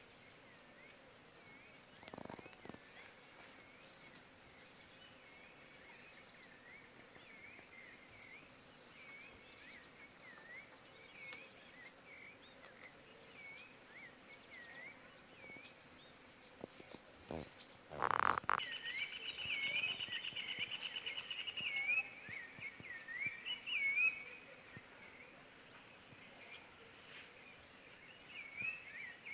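A steady high-pitched insect drone, like crickets, runs throughout, with faint short chirping calls repeating beneath it. About two-thirds of the way through, a louder sound is followed by a fast trill lasting about five seconds.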